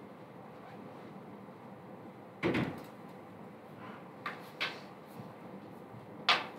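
A few knocks and clicks against quiet room tone: a dull knock about two and a half seconds in, two light clicks around four seconds, and a sharp knock near the end.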